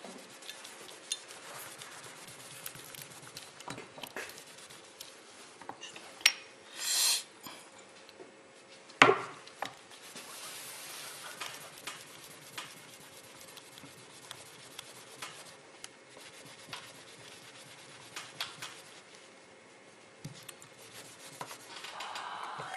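Paper towel rubbing and scraping over a small metal-putty test piece on a tabletop, with scattered small clicks and knocks. A brief hiss comes about seven seconds in and a sharp knock about two seconds later.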